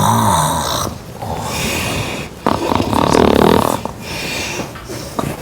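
A woman snoring loudly in her sleep: two long snores, one at the start and a second about two and a half seconds in, with quieter breathing between and after.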